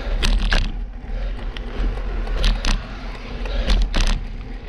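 Steady low wind rumble on the microphone of a bicycle-mounted camera, with tyre noise from a road bike climbing slowly on asphalt. A few short hissing bursts come near the start and twice in the second half.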